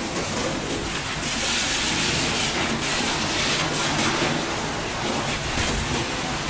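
High-pressure washer jet spraying a truck's wheels and steel body sides: a steady hiss of water striking metal that grows louder and brighter about a second in, flickering as the spray moves across the panels.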